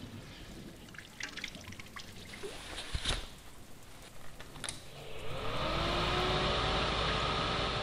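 Surflogic Wetsuit Pro Dryer's blower fan spinning up with a rising whine that settles into a steady whir and rush of air, about five seconds in. Before it come faint handling rustles and a couple of sharp clicks as the wet wetsuit is fitted over the dryer.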